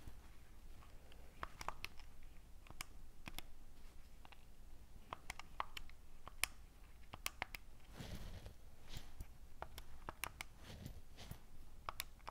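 Faint, irregular clicks of calculator keys being pressed, coming in short runs with pauses between them.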